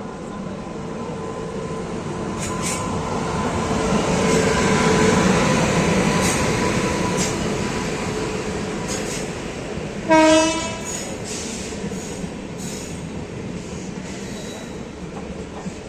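A train running on the rails, its noise building up and then easing off, with clicks of wheels over rail joints and a thin steady wheel squeal. About ten seconds in, a short, loud horn blast of about half a second.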